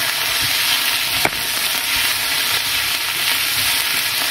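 Tofu and chopped vegetables sizzling in olive oil in a frying pan as they are stirred, with one sharp knock about a second in.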